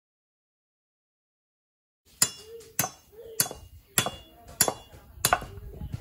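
Machete chopping into the husk of a green coconut held on a wooden block: about seven sharp strikes at an even pace, starting about two seconds in.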